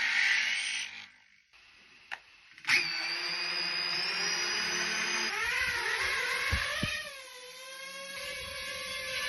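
DJI drone's motors and propellers starting up about two and a half seconds in, then running as a steady multi-tone whine whose pitch wavers up and down in the middle as the motors change speed. A short burst of noise comes first.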